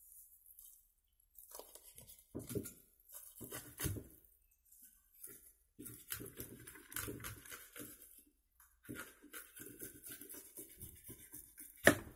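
Knife slicing and scraping along a carp's scaly skin on a wooden cutting board, in irregular strokes with short pauses, as the scale pockets are cut through so the scales peel off in one sheet with the skin. A sharp knock near the end.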